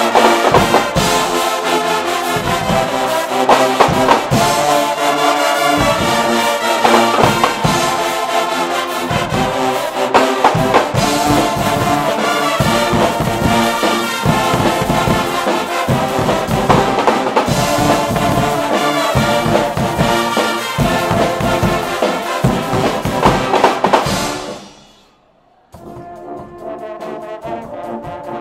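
A Guggenmusik brass band playing: trumpets, trombones and sousaphones in loud unison over drum kits with cymbals. Near the end the music breaks off for about a second and resumes more quietly.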